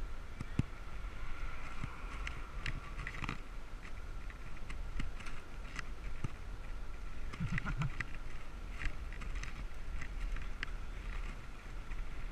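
Wind rumble on a helmet-mounted camera's microphone while riding a bicycle, with a faint steady high whine and scattered clicks and rattles.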